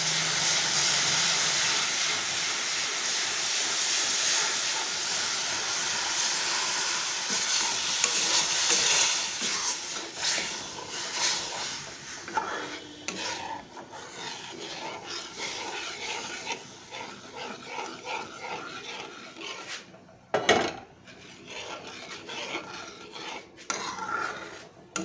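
Sugar syrup hissing and sizzling loudly as it hits ghee-roasted wheat flour in a hot metal kadai. After about nine seconds the sizzle dies down into the scraping of a metal spatula stirring the thickening atta halwa. There is one sharp knock about two-thirds of the way through.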